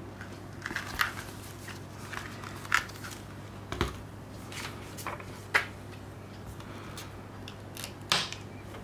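Gloved hands handling a Blu-ray disc case and its printed paper artwork: rustling with several sharp clicks and taps, and a duller knock about four seconds in, over a low steady hum.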